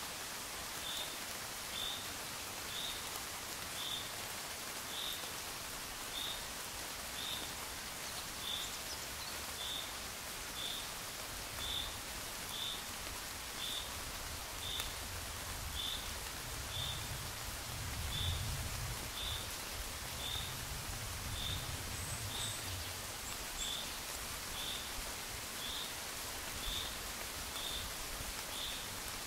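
Gentle rain falling in a steady hiss, with a short high chirp repeating about once a second. A low rumble swells and fades around the middle.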